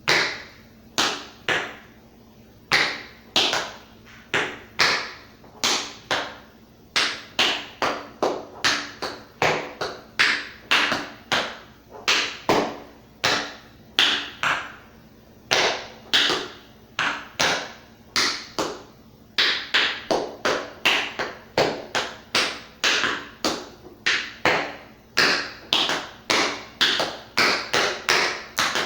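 Tap shoes' metal taps striking a hard floor in a choreographed tap routine, with no music: a long run of crisp clicks in an uneven rhythm, at times two or three a second and growing quicker and denser in the second half.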